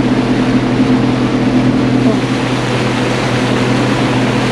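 A motorboat's engine running steadily at cruising speed, an even drone over a constant rush of wind and water.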